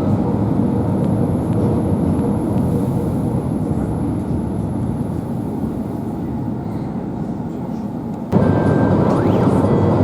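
Suburban electric train running, heard from inside the carriage: a steady low rumble that grows slightly quieter over several seconds. About eight seconds in the sound jumps abruptly louder, with thin high whining tones over the rumble.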